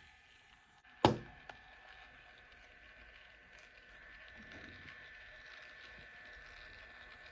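A single sharp click about a second in, followed half a second later by a smaller click, over a faint steady high-pitched whine.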